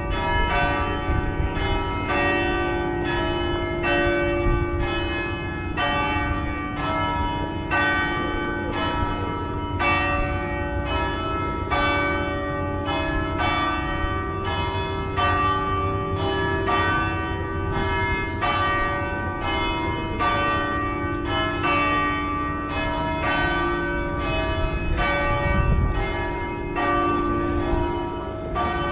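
Church bells pealing: several bells of different pitches struck one after another, about three strikes every two seconds, their rings overlapping over a low rumble.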